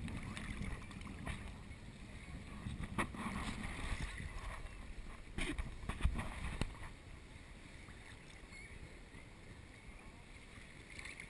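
Sea water lapping and sloshing against a camera held at the surface, with a few sharp splashes and knocks about three, five and six seconds in, then quieter near the end.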